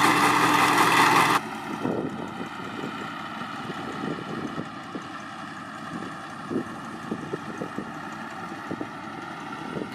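Tracked rice combine harvester engine running. It is loud for the first second and a half, then cuts off sharply to a quieter, steady engine hum with scattered low knocks and rattles.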